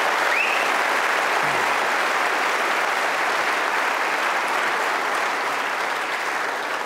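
Large audience applauding steadily, beginning to die away near the end.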